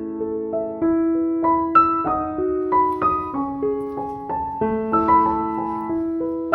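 Background piano music: a gentle melody of single notes over held chords, a new note about every half second.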